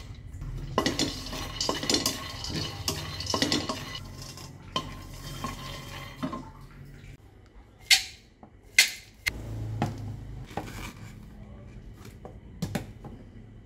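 Raw peanuts rattling and scraping in a stainless steel wok as they are stirred with a wooden spatula, being dry-roasted. After about seven seconds the rattling gives way to scattered sharp clicks, two loud ones close together, then plastic clicks near the end as a small chopper-blender jar is fitted together.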